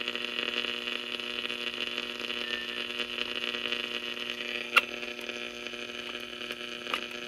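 Steady electrical hum with a hiss above it from the loudspeaker of a 1938 Zenith Radio Nurse tube receiver, which is switched on but picking up no signal. Two short clicks come near the end.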